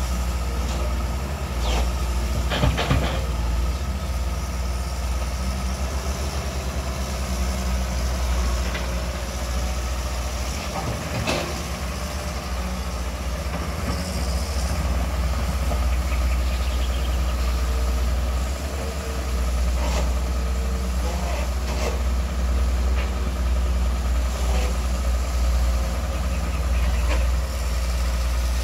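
Long-reach excavator's diesel engine running steadily as it works, with a few sharp knocks from the machine.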